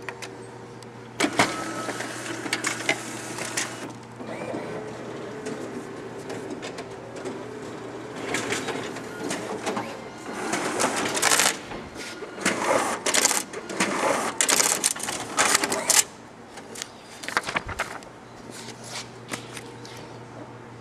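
Xerox ColorQube 9302 colour copier running a copy job after Start is pressed: machine whirring and clattering as paper feeds through it and into the booklet-maker finisher, loudest in uneven stretches toward the middle. About two-thirds of the way in it drops to scattered clicks over a steady low hum.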